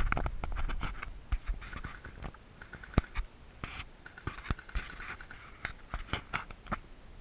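Irregular clicks, scrapes and rustling, with one sharp click about three seconds in.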